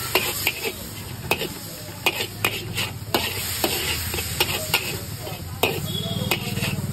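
Metal spatula scraping and clanking against a large iron wok (kadhai) in fast, irregular strokes while the food in it sizzles. A steady low hum runs underneath.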